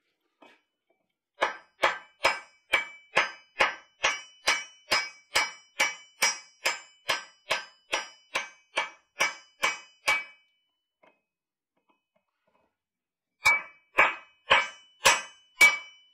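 Hand hammer striking a steel drift driven through the hot eye of a forged hammer head on a swage block, drifting the eye open. There is a steady run of about twenty ringing metal-on-metal blows, a little over two a second, then a pause of about three seconds, then five more blows.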